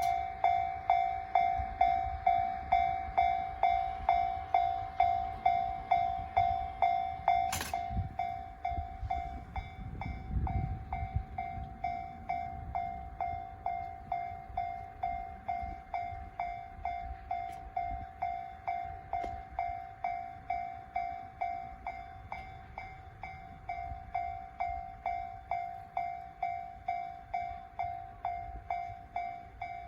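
Japanese railway level-crossing warning bell, the JR standard electronic tone, ringing steadily at about two strikes a second. A sharp click about eight seconds in, then a brief low rumble, after which the bell sounds a little quieter.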